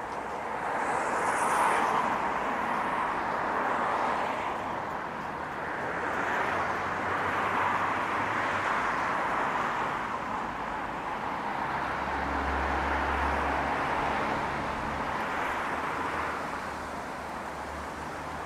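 City street traffic: cars passing one after another, their tyre and engine noise swelling and fading several times, with a low engine hum from a heavier vehicle about two-thirds of the way in.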